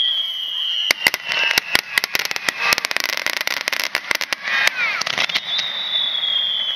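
Rapid-fire aerial fireworks (a renpatsu barrage) going off in quick succession, many sharp bangs and crackles, thickest in the middle. Over them, high whistles slide slowly down in pitch, one fading out early on and another starting near the end.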